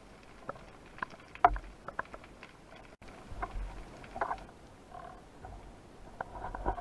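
Underwater sound heard through a camera housing: scattered sharp clicks and knocks from a spearfisher's gear and handling, the loudest about a second and a half in, over a low rumble of water movement.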